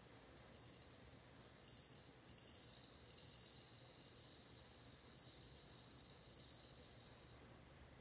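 Japanese bell cricket (suzumushi) singing: one high, clear ringing trill that swells and dips in loudness, then stops suddenly about seven seconds in.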